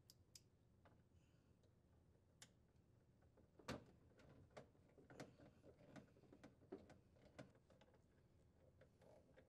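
Faint irregular clicks and ticks of a hand nut driver turning screws into the refrigerator's plastic water filter housing, with one sharper click almost four seconds in, then a run of small clicks.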